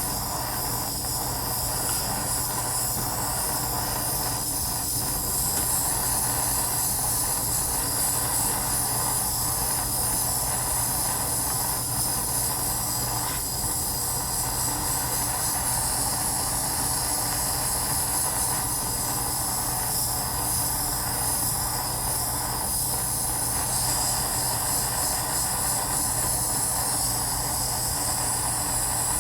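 Jeweller's soldering torch flame running with a steady hiss, heating a bezel joint to flow hard solder.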